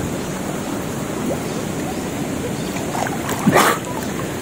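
Water sloshing and splashing steadily around the spearfisher, with one louder surge of water about three and a half seconds in.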